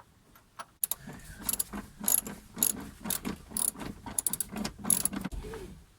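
Seat belt retractor ratcheting: a run of irregular sharp clicks, starting about a second in and stopping near the end.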